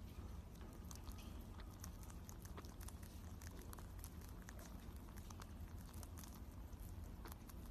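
Pet rabbit chewing close to the microphone: a faint run of small, quick crunching clicks.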